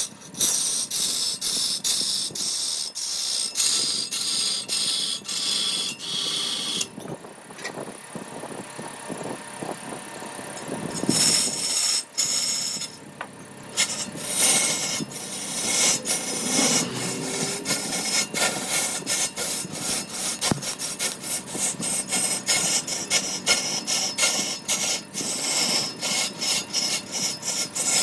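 A hand tool working wood in rapid, repeated back-and-forth strokes, scraping and rasping. The strokes ease off into a quieter stretch about seven seconds in, then start again a few seconds later.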